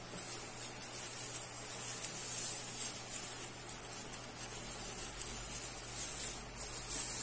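Tinsel garland rustling as it is handled and wound onto a wire ring: a continuous high, hiss-like crinkle with small irregular swells.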